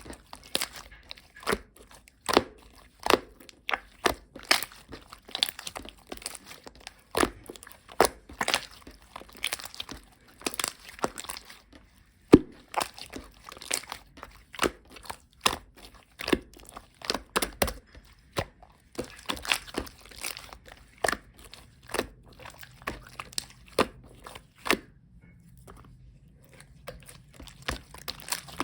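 Soft slime that keeps going runny, squeezed and kneaded by hand, giving irregular sharp sticky pops and crackles, several a second. There is a short pause about halfway through, and the pops thin out near the end.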